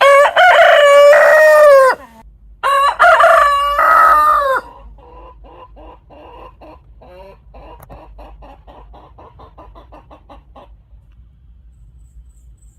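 A rooster crowing twice, each crow about two seconds long. Faint rapid clucking follows, about five a second, and stops a little after the middle.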